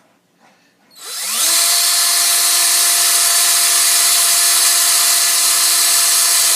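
Electric drill with a 9/64-inch bit spinning up about a second in, then running at a steady high speed as it drills a hole in a helmet ear piece.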